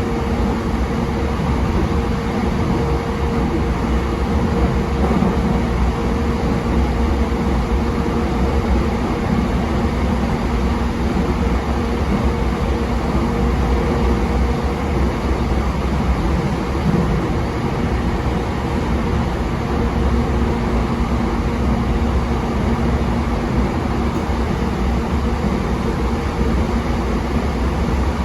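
JR East E233-7000 series electric train running at a steady speed: a continuous rumble of wheels on rail with a steady hum beneath it.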